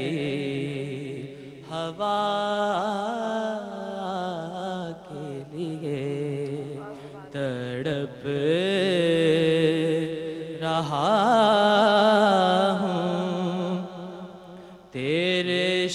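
A young man singing a naat solo into a microphone, in long ornamented phrases with short breaks between lines and a longer pause near the end.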